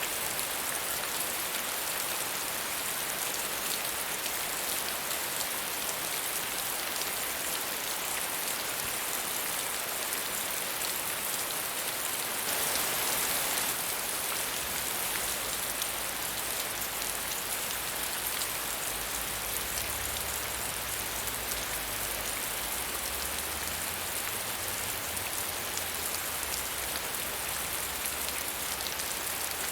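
Steady medium rainfall: an even hiss of many drops falling on a surface, briefly a little heavier about halfway through.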